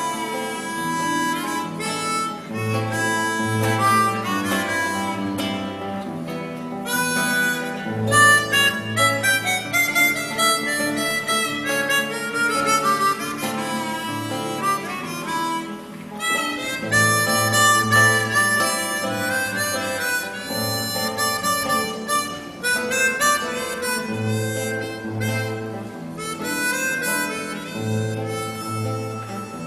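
Harmonica playing a melody over a classical guitar accompaniment, with the guitar's low bass notes recurring throughout.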